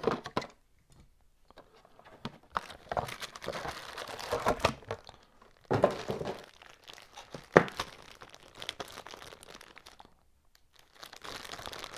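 Plastic bag crinkling and rustling as it is handled and pulled open, in irregular bursts with a couple of short pauses, and one sharp click about halfway through.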